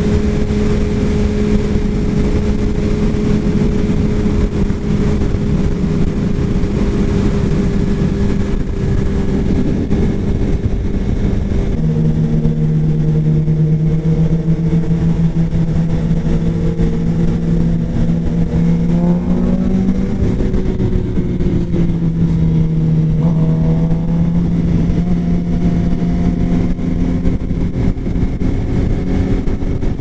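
Suzuki sportbike engine running at steady cruising revs under heavy wind rush on the microphone. About 12 s in the engine note drops abruptly to a lower pitch. Around 20 s it rises and falls briefly as the revs change.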